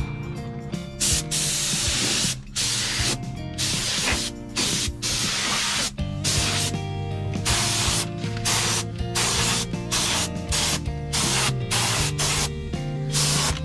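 Paint being sprayed in short, repeated bursts of hiss, roughly one a second and of uneven length, over background music.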